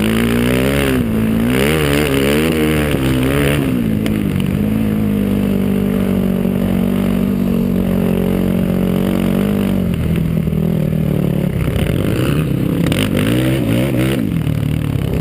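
Single-cylinder sport ATV engine under way, revving up and down for the first few seconds, then holding a steady pitch for about six seconds before rising and falling again near the end.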